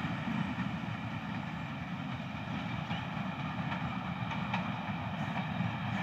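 Pakistan Railways HBU-20 diesel locomotive approaching with an express train, a steady run of engine and rail noise with no horn.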